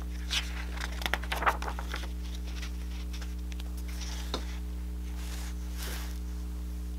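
Pages of a picture book being turned by hand: a short burst of paper rustling and crinkling in the first two seconds, then a faint tap or two, over a steady low hum.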